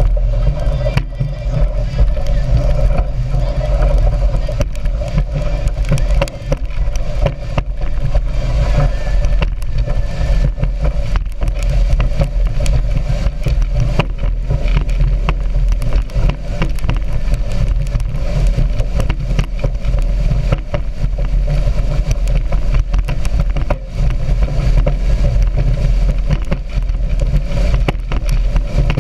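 A speedboat under way, its engine running steadily under heavy wind rumble on the microphone, with faint voices.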